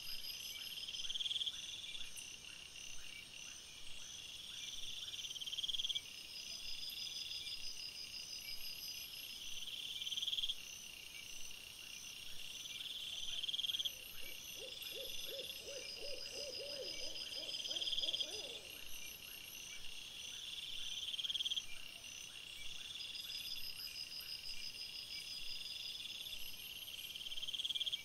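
Crickets chirping in a steady high-pitched night chorus that swells and breaks off every few seconds. About halfway through, a lower, rapid rattling trill from an unseen animal sounds for about four seconds.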